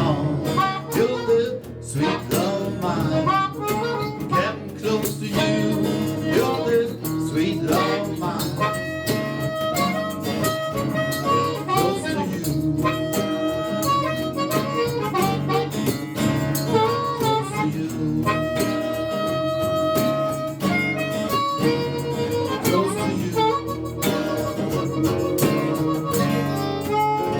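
Live blues instrumental: a harmonica playing a solo of long held and bending notes over guitar accompaniment.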